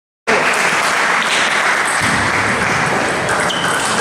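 Dense, steady clatter of many table tennis balls being hit and bouncing on the other tables of a busy hall, with a faint murmur of voices. It starts after a split second of silence.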